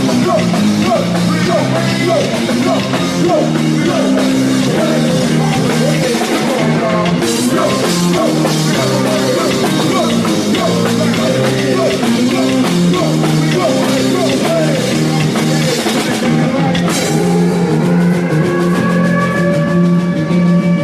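Rock band playing loud at a soundcheck, with electric guitar, bass and a drum kit. About 17 seconds in there is a sharp hit, and after it the band holds long sustained notes.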